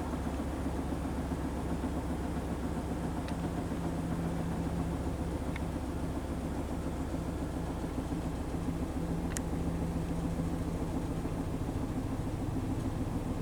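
Kenmore Series 500 high-efficiency washing machine in its spin cycle, the drum spinning at a steady speed with an even motor hum, and a few faint ticks.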